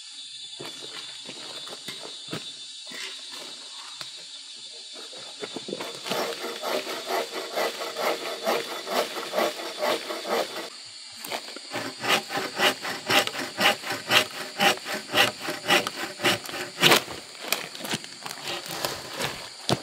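Wooden-framed bucksaw cutting through a wooden pole with steady back-and-forth strokes, about two a second. The sawing starts a few seconds in, stops briefly about halfway, then resumes louder.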